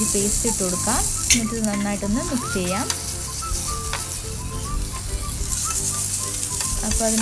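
Sliced onions and ginger-garlic paste sizzling in hot oil in a pan while they are stirred with a spatula, with a single sharp click about a second in.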